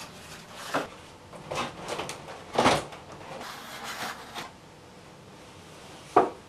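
Stiff paper and card parts of a large paper model being handled and pressed into place: a string of hollow knocks and scrapes, the loudest about two and a half seconds in, and one last sharp knock near the end.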